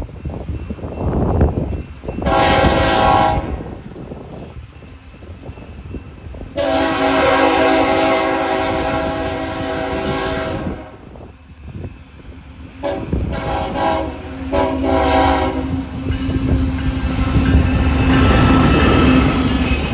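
Air horn of a BNSF freight locomotive sounding a crossing warning: a first blast, then one long blast of about four seconds, then a quick toot and two shorter blasts. Locomotive engine and wheel rumble build toward the end as the lead locomotive draws alongside.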